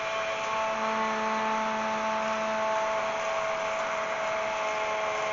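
Handheld stick blender running steadily at the bottom of a mason jar of oil, emulsifying it into mayonnaise: a steady motor whine with a hiss.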